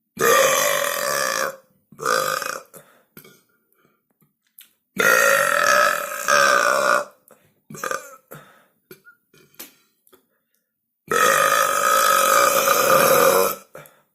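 Loud human belching: three long drawn-out belches, one at the start, one about five seconds in and one about eleven seconds in, each lasting about one and a half to two and a half seconds, with a few shorter belches between them.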